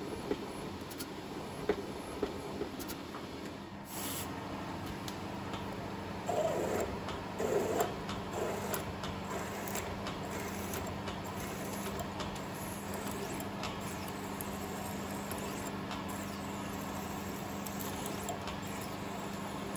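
Small milling machine's spindle running with a steady hum as it drills into a block of aluminium, with scattered light clicks of chips and two louder short bursts about six and a half and seven and a half seconds in.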